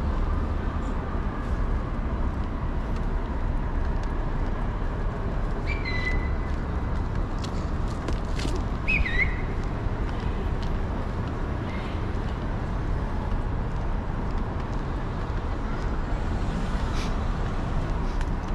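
City street ambience: a steady rumble of traffic, with two brief high-pitched squeals near the middle, the second wavering.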